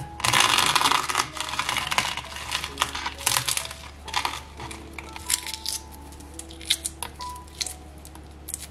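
Shell of a hard-boiled egg crackling as the egg is rolled under the palm on a cutting board, loudest in the first second, then scattered cracks and small clicks of shell as it is peeled off.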